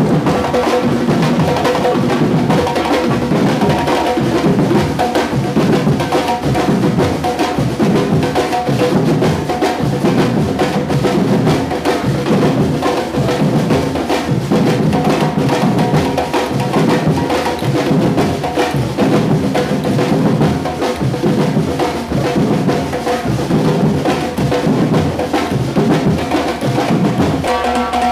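Batuque percussion group drumming together: bass drums and snare-type drums playing a dense, steady groove.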